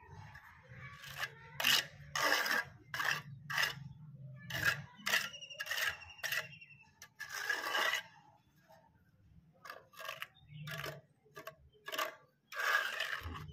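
Steel trowel scraping and smoothing wet cement mortar on a concrete roof slab in a run of short, irregular strokes, packing cement around a pipe hole to seal it against leaks.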